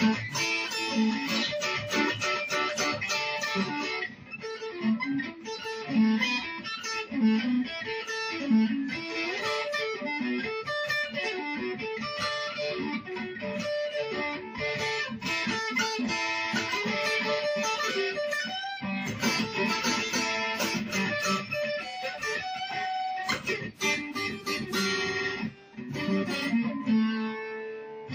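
Acoustic guitar music: fast, densely plucked notes, briefly thinning out about four seconds in.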